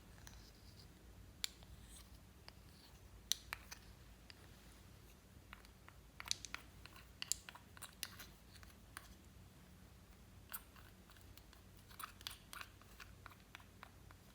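Slime being worked by hand, giving scattered sharp clicks and crackles at irregular intervals, bunched into short flurries around the middle and near the end.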